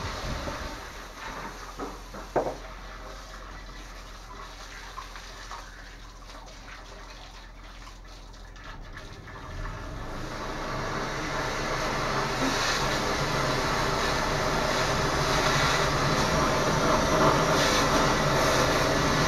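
High-pressure drain jetter running while it flushes a blocked sewer pipe, a steady machine hum with rushing water noise. It swells markedly from about ten seconds in, after a few faint clicks near the start.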